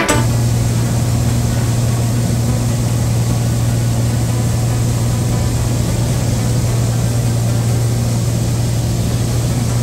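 Light airplane's engine and propeller running steadily in flight: one constant low hum over an even rushing noise.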